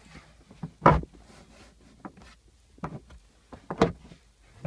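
Plastic trim clips of an Audi A2 tailgate panel snapping into their holes as the panel is pressed on. Two loud pops about three seconds apart, with fainter clicks between them.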